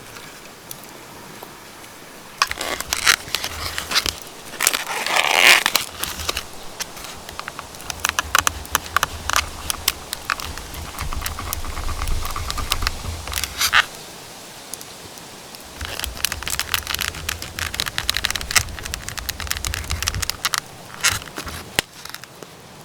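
Crackling, scraping and rustling of things being handled close to the microphone, with many sharp clicks, in two spells: from a couple of seconds in to about two-thirds through, then again briefly near the end.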